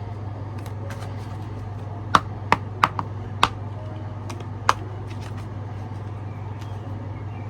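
Tarot cards handled and shuffled by hand: about six sharp card snaps and taps between two and five seconds in, over a steady low hum.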